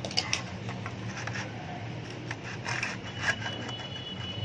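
Plastic Hot Wheels track pieces being pushed and slid together, scraping against each other with small clicks, over a low steady hum.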